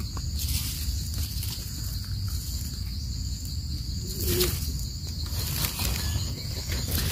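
Faint rustling and scraping of leaf litter and soil as termite mushrooms are picked by hand, over a steady low rumble of microphone handling noise and a steady high drone of insects.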